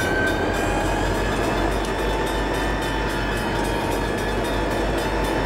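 EMD GP-series diesel locomotives rolling slowly past, their engines running steadily along with the sound of wheels on the rails. A thin, steady high tone runs over the rumble.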